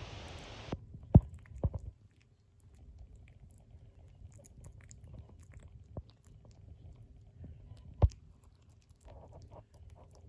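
Two-and-a-half-week-old Kooikerhondje puppies mouthing and licking each other: faint, wet mouth clicks. A few sharp knocks stand out, the loudest about a second in and another near eight seconds, and a hiss cuts off in the first second.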